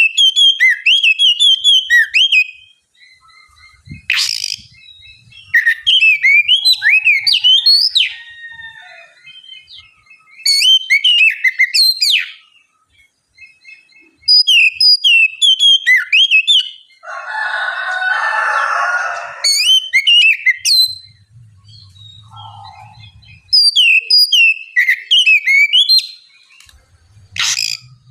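Oriental magpie-robin (kacer) singing: bursts of clear, sharp whistled notes sliding up and down, each phrase a couple of seconds long with pauses between. A harsh rasping burst comes about two-thirds of the way through.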